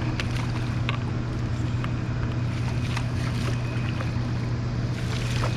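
Boat motor humming steadily at a constant low pitch, with a few light clicks and ticks over it.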